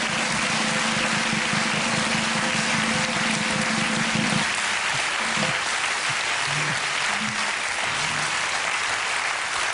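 Audience applauding steadily, with music underneath: one low note held for about four seconds, then a few short low notes.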